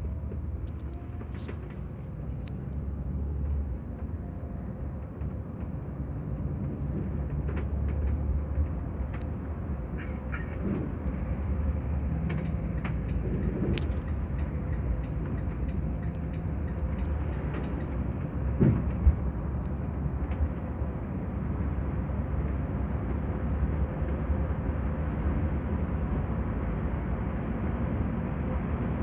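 Volvo 9700 Grand S coach heard from inside the cabin at highway speed: steady low engine and road rumble, with scattered small rattles and two sharp knocks a little past halfway.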